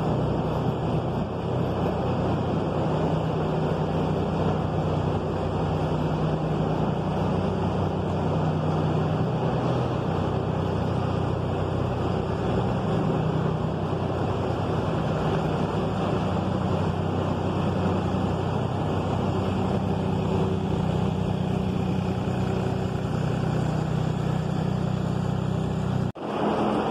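Engine of the machine pulling a homemade stall groomer, running steadily as the groomer is worked through sand and lime in cow stalls; the sound cuts out briefly near the end.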